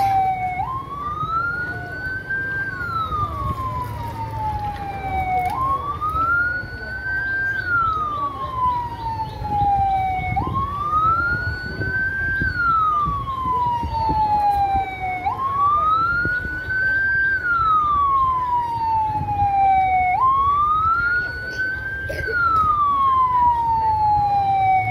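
Police car siren wailing in a slow repeating cycle: each wail jumps up, climbs for about two seconds, then falls away over about three, about every five seconds. A low rumble and crowd chatter run beneath it.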